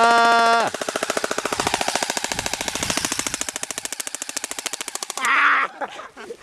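Airsoft rifle firing one long full-auto burst, a rapid, even stream of shots that stops about five seconds in. A person yells over the first shots, and yells again as the firing ends.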